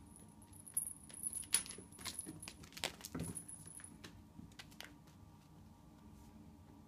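Small jingle bell on a cat toy jingling as a kitten bats and chases it across a tile floor, with sharp taps and clicks of the toy and claws on the tiles. The jingling and clicking are busiest in the first half and die away after about five seconds.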